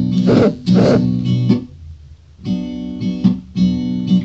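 Acoustic guitar strummed by hand: a few strummed chords, a short lull about halfway, then chords ringing out again.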